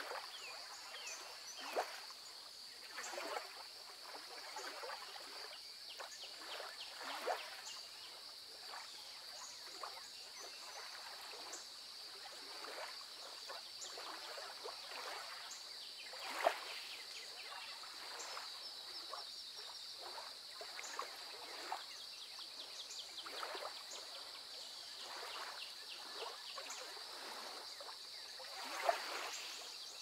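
Lakeside nature ambience: a steady high-pitched insect drone, with short calls scattered irregularly over it, a few of them louder and sharper.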